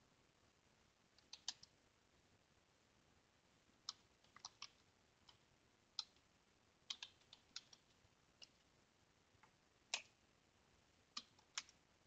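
Faint computer keyboard keystrokes, typed in short, sparse bursts of a few taps each, with one sharper tap about ten seconds in.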